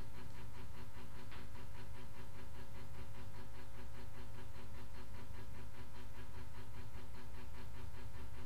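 Steady hum and hiss from a machine or electrical source, pulsing rapidly and evenly without change.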